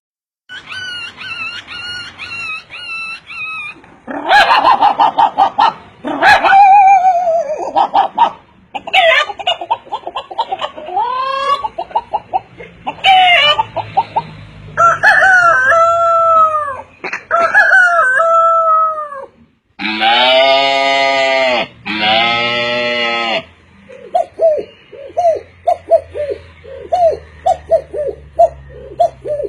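A man imitating farm animals with his voice: rooster crowing and hen clucking among a long run of separate animal calls.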